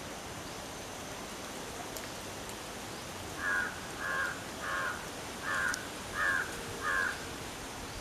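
Crow cawing: six short caws about half a second apart, starting about three and a half seconds in, over a steady background hiss.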